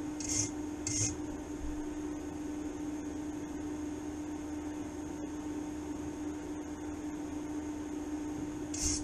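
Short scratchy strokes of a hand tool rubbing on the steel workpiece, two within the first second and another at the very end, over a steady electrical hum from the workshop equipment.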